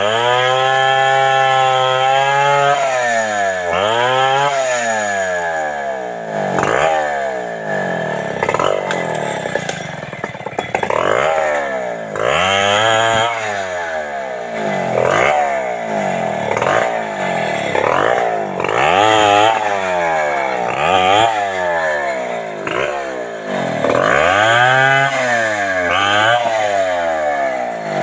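Two-stroke chainsaw cutting the limbs off a felled bendo tree. It runs at high revs for the first couple of seconds, then its pitch drops and climbs again every second or two as the chain bogs down in each cut and revs back up.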